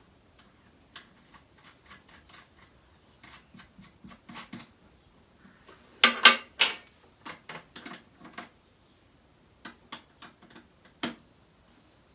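Small metal parts clinking and tapping as a washer and nut are fitted onto the spindle of an oscillating spindle sander. The clicks come at irregular intervals, with a louder cluster about halfway through and one sharp knock near the end.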